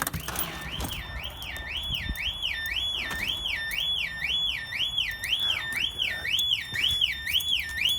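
Volvo S60 alarm siren sounding on its own, a malfunction: a loud electronic tone sweeping up and down about twice a second, without a break.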